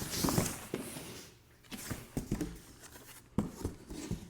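Packing material and desk parts being handled in a cardboard box: rustling and scraping, with a few light knocks.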